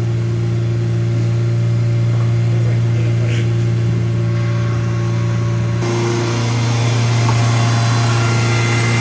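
Ford Ranger pickup engine idling steadily, running on peanut oil with peanut butter squeezed into the crankcase in place of engine oil.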